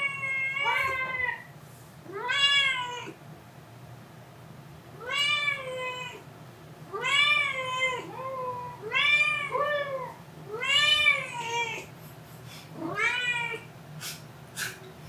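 A domestic cat meowing over and over: about a dozen short meows, each rising and then falling in pitch, some coming in quick pairs.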